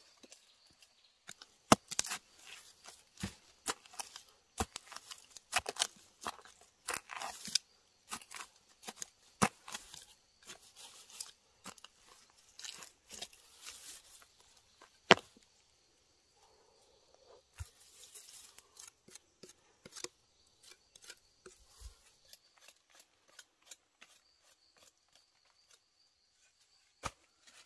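Hand tools working wood: irregular sharp knocks mixed with short scraping cuts, with the loudest knocks about two seconds in and again midway. The work thins to sparse taps in the last third.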